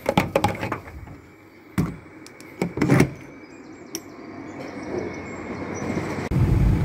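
A diesel pump nozzle is lifted from the pump and fitted into a car's filler neck, with clicks and clattering knocks over the first three seconds. Then fuel rushes into the tank, growing steadily louder. Near the end a low steady rumble of a car on the road takes over.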